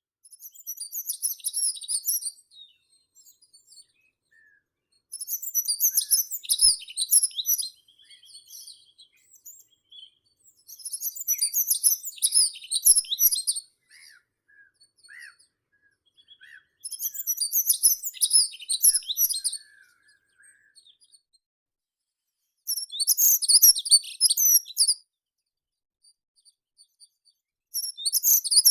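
A meadow songbird repeating the same rapid, very high-pitched warbling phrase of about two and a half seconds, six times at intervals of roughly five to six seconds. Faint, sparse chirps from other birds come in between the phrases.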